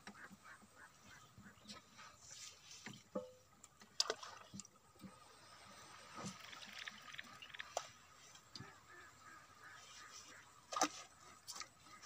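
Faint water dripping and sloshing against a small wooden boat, with scattered small clicks and a few sharper knocks, the loudest about four seconds in and near the end.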